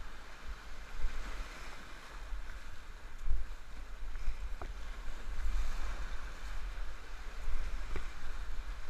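Whitewater rushing around a kayak, muffled because it is heard through a closed helmet-camera housing, over a low rumble of buffeting. A couple of sharp knocks come about halfway through and again near the end.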